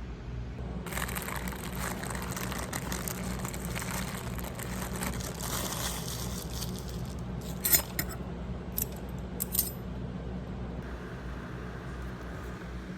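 Rustling, then a few sharp clicks and taps, the loudest just before the eight-second mark, over a steady low hum.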